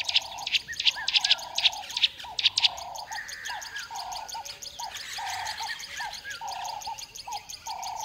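Birds calling and chirping: a low note repeated about once a second, with quick high chirps over it for the first few seconds that thin out after that.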